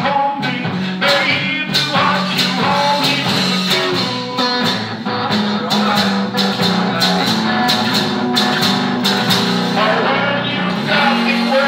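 Live blues-rock on electric guitar, played over a steady stomped beat.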